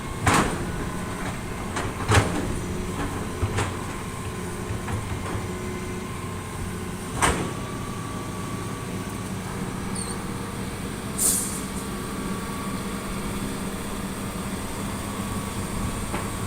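Heavy construction machine's diesel engine running steadily, with sharp metallic clanks four times in the first half and a brief high hiss about eleven seconds in.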